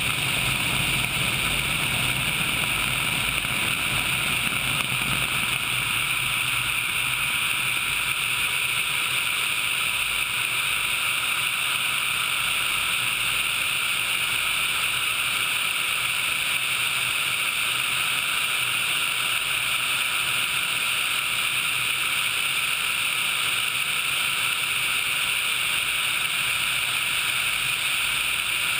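Sikorsky HH-60 Pave Hawk helicopter in flight, heard from a camera mounted on its outside: a steady rush of airflow over the microphone mixed with rotor and engine noise. A low rumble under it eases off a few seconds in.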